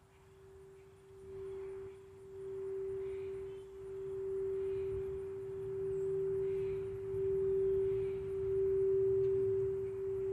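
Quartz crystal singing bowl sounding one steady, pure tone that grows from faint to loud in slow, pulsing swells.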